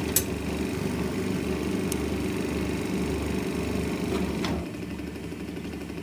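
Hardinge turret lathe running steadily with a low mechanical hum. A sharp click comes just after the start and another about two seconds in. At about four and a half seconds a click comes and the running drops to a quieter level.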